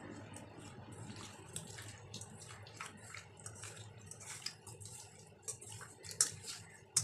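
Whole pabda fish being mixed by hand with turmeric in a stainless steel bowl: faint, irregular wet squishes and clicks as the fish are rubbed and turned against the bowl, with a few sharper clicks near the end.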